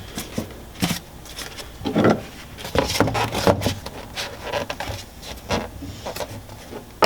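Handling noise of foam inserts being set into a gun box: irregular light knocks and clicks with rubbing and scuffing between them, the loudest knocks about two seconds in.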